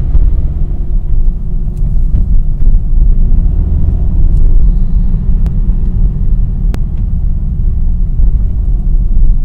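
Car driving on the road, heard from inside the cabin: a steady low rumble, with two sharp clicks a little past the middle. The car runs a newly fitted DXD Stage 3 clutch and has an unidentified rattle or chatter at light throttle, which the owner can only describe as something grinding.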